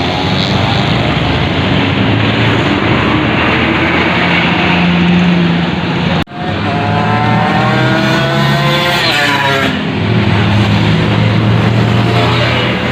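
Tour bus on the road, its engine running steadily. About six seconds in the sound cuts out briefly, then a pitched tone rises for about three seconds over the engine.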